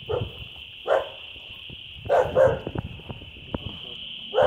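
A dog barking, about five short barks at irregular intervals, over a steady high-pitched drone.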